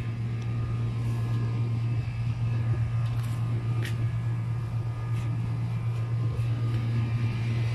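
Steady low mechanical hum, with a few faint clicks of wire clothes hangers being handled near the middle.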